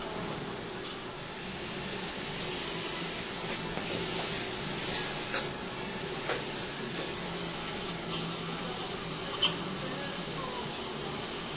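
Dental suction hissing steadily, with a low hum underneath and a few faint clicks of instruments.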